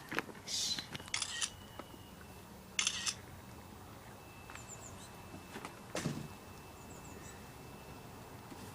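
A few short rustling noises and clicks, with faint bird chirps in the background.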